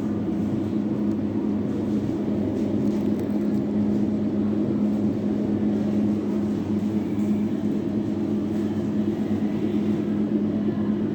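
Steady low machine hum with one constant tone, unchanging throughout.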